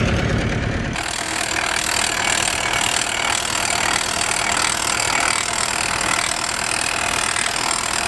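A tractor engine running. There is a deep rumble for the first second, then after an abrupt change a dense, even clatter with little low rumble continues to the end.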